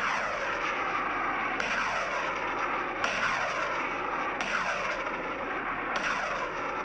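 Pickup-mounted multiple rocket launcher firing a ripple of rockets, five launches about a second and a half apart. Each starts with a sudden rushing blast whose whoosh falls in pitch as the rocket flies off, over a continuous roar.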